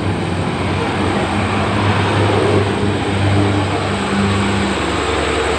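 Heavy truck engine straining under load as it climbs a steep grade, running with a steady low drone over road and traffic noise.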